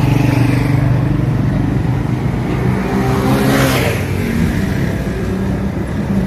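A motor vehicle engine running steadily with a low hum. About three and a half seconds in, a louder rush of noise swells and fades.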